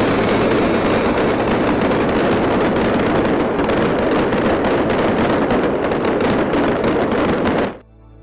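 Fireworks crackling densely, a steady rapid rattle of many small bangs that cuts off abruptly near the end.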